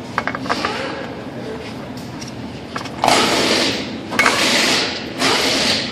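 New spin-on oil filter being threaded onto its mount by hand. A few light clicks come near the start, then three rubbing swishes about a second apart as the hand turns the filter.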